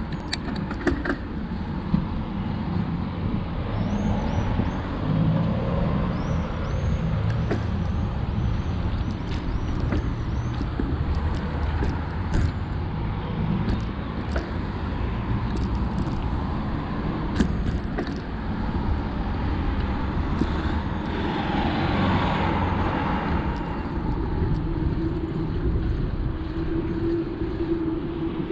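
Bicycle ride on a road: wind rumbling on the microphone and tyre noise, with frequent clicks and rattles. A vehicle swells past and fades about three-quarters of the way through.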